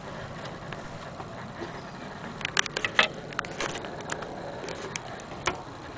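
Clicks and knocks from hands handling an antique Vienna wall clock's wooden case, in a cluster about halfway through and once more near the end, over steady background noise.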